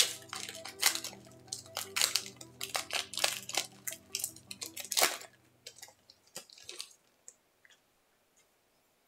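Foil booster pack wrapper crinkling as it is handled and opened: a fast run of sharp crackles that stops about seven seconds in.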